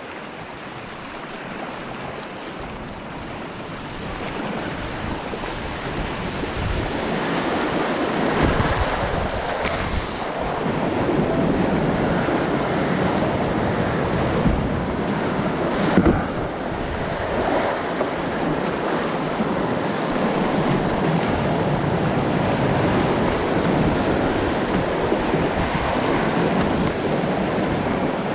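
Rushing whitewater of an artificial slalom channel heard from a kayak running down the rapids, with wind buffeting the microphone. The water grows louder over the first few seconds, then stays steady, with a brief sharper hit about halfway through.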